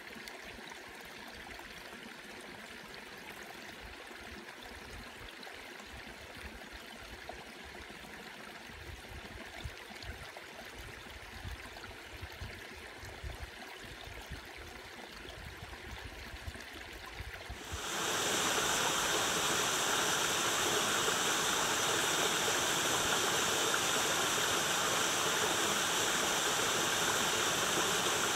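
Small forest stream running over rocks in a little cascade, a steady rush of water that comes in suddenly and much louder about two-thirds of the way through. Before that there is only a faint background hush with a few low rumbles.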